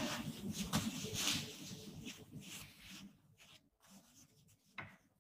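Close rustling and rubbing noises that die away after about three seconds, followed by a single sharp click near the end.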